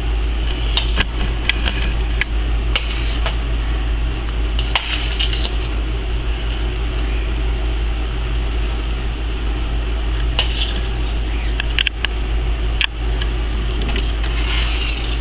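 A metal spoon stirring and scraping through thick chicken-and-dumpling broth in a stainless steel stockpot, with irregular sharp clinks against the pot's side and bottom. A steady low hum runs underneath.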